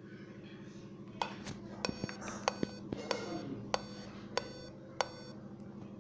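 Dell Inspiron 5521 laptop clicking during startup: about a dozen sharp, briefly ringing clicks, bunched at first and ending in three evenly spaced ones. This is the startup clicking the owner reports as a fault and cannot explain.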